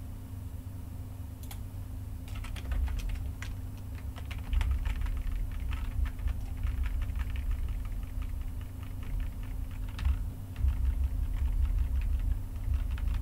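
Computer keyboard keystrokes, irregular clicking that starts about two seconds in and runs on in quick clusters, over a low steady hum.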